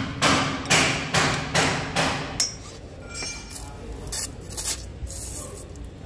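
Hand primer pump on a Volvo truck diesel engine being worked to bleed air from the fuel system: a quick series of knocks, about two and a half a second, that stop after about two and a half seconds and give way to a few softer clicks.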